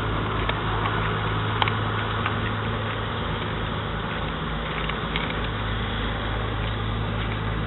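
A vessel's engine running steadily, a constant low hum under a wash of engine and water noise.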